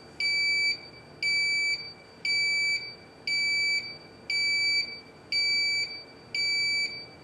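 Lubecore in-dash test switch alarm beeping, a high-pitched beep about once a second, each beep about half a second long, seven in a row. It is the low-level alarm, signalling that the lubrication pump's reservoir is low on grease.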